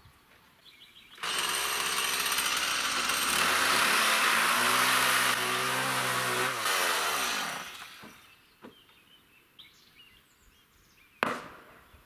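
Electric circular saw spinning up and cutting wood for several seconds, then coasting down with a falling whine. A single sharp knock follows near the end.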